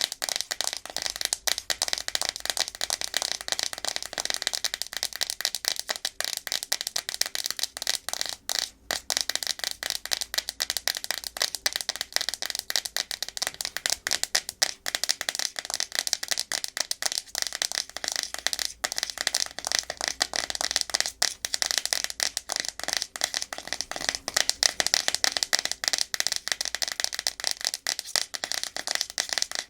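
Natural fingernails tapping and scratching fast and hard on a hard plastic surface: a dense, unbroken stream of rapid clicks and scrapes, with a few very brief pauses.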